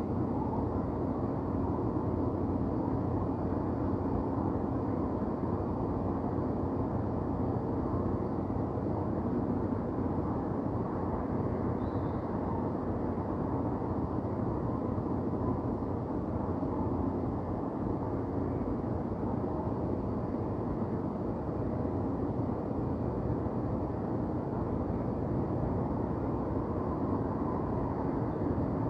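Downtown city ambience: a steady low rumble of distant traffic, even throughout, with no single sound standing out.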